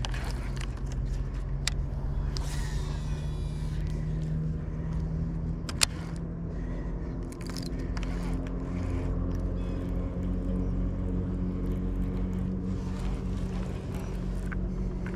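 Boat's outboard motor running steadily, its pitch stepping slightly about a third and again about half way through. A single sharp knock about six seconds in.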